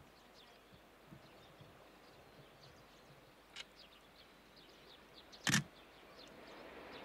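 Faint outdoor quiet with scattered small bird chirps and one sharp knock about five and a half seconds in. Near the end the low rumble of an approaching EH500 electric locomotive hauling a freight train starts to rise.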